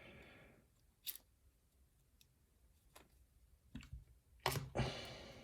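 A few faint, sharp metallic clicks and taps from a padlock and its small tools being handled, spaced roughly a second apart, with a brief scraping rustle near the end.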